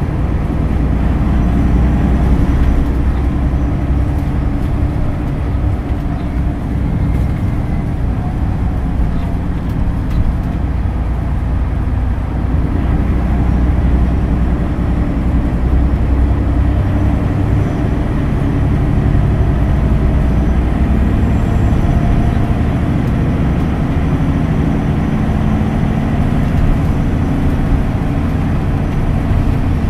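Cabin sound of a Hino Blue Ribbon City Hybrid diesel-electric city bus under way: a steady low engine and road rumble, with the engine note shifting a little in the second half.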